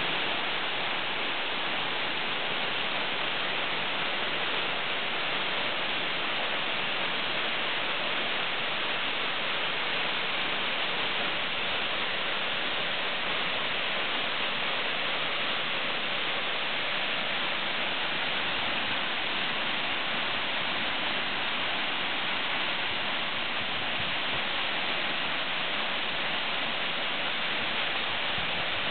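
A tall waterfall plunging down a rock face: a steady, unbroken rush of falling water.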